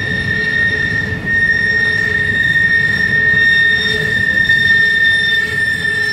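Freight train cars rolling around a sharp curve, their wheels squealing in a steady high-pitched tone over the low rumble of the passing cars.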